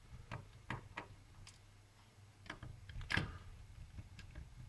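Scattered light clicks and taps of a small screwdriver unscrewing screws from a netbook's plastic case, with the loudest click about three seconds in.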